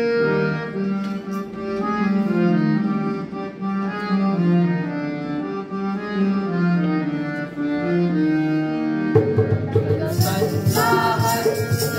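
Harmonium playing a slow melody over sustained reedy chords. Drum strokes come in about nine seconds in, and a jingling rhythm joins about a second later as the music picks up a beat.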